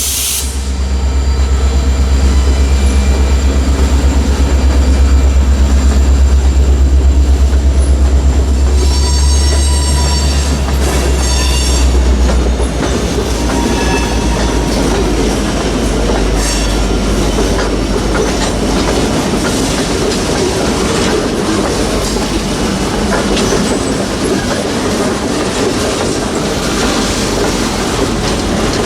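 Diesel-hauled freight train passing. A deep locomotive engine rumble dominates for about the first twelve seconds, then drops away as the cars roll by with steady wheel clatter and some high wheel squeal.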